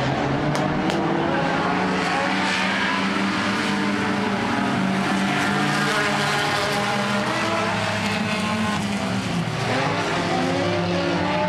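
A pack of dirt-track stock cars racing together, several engines at once, their pitches rising and falling against one another as the cars go through the turn.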